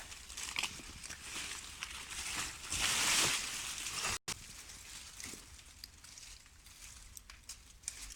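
Footsteps crunching and swishing through dry leaves and undergrowth, in uneven bursts, with an abrupt break about four seconds in.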